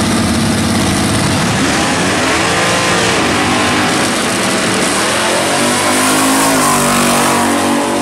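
Dodge drag car's engine running steadily at the start line, then accelerating hard down the drag strip, its pitch climbing from about three seconds in and dropping near the end.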